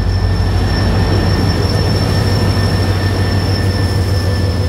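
Electric commuter train running along the platform: a loud low rumble with a steady high-pitched squeal over it.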